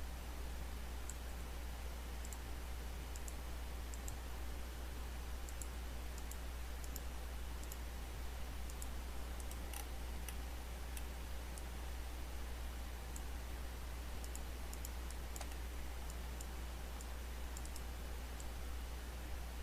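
Faint computer mouse clicks, scattered and irregular, over a steady low hum and background hiss.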